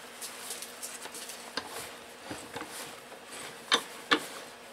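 Cloth rustling and light taps as a wet shop rag is pressed and tucked around a starter generator held in a bench vise, with two sharp knocks close together near the end.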